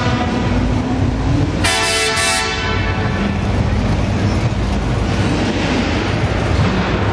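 Muscle car engines rumbling steadily in a passing parade of cars. A vehicle horn sounds loudly for about a second, about two seconds in, then fades.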